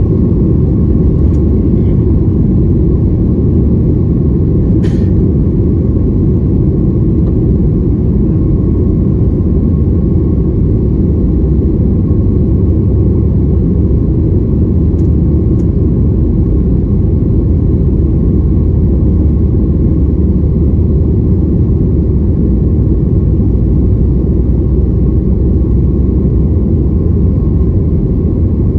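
Boeing 737 MAX 8 airliner heard from inside the cabin during departure: a loud, steady rumble of the engines and airflow with a faint steady hum above it. A brief click about five seconds in.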